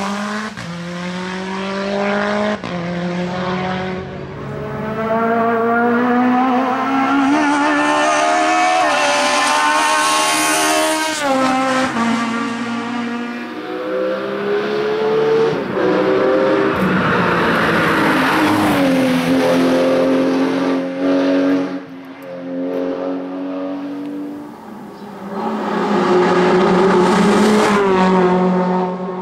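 Hill-climb racing car engines at full throttle, the pitch climbing hard and dropping sharply again and again as they shift up through the gears.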